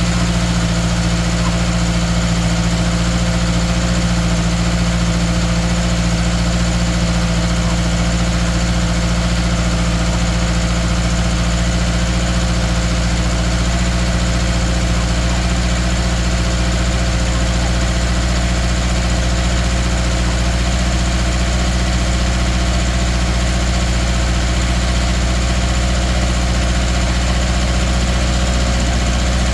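A 2013 Subaru Outback's 2.5-litre flat-four engine idling steadily with a misfire on cylinder 3.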